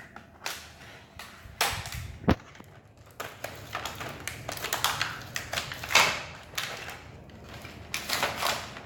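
Plastic toy packaging crinkling and rustling in irregular strokes as it is pulled off small accessories, with a sharp click a little over two seconds in.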